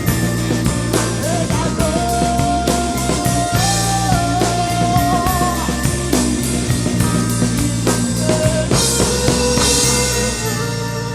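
Rock band playing an instrumental passage of psychedelic rock: drum kit, bass and a sustained lead melody that bends in pitch. About ten and a half seconds in, the drums and bass drop out and the music starts to fade as the song winds down.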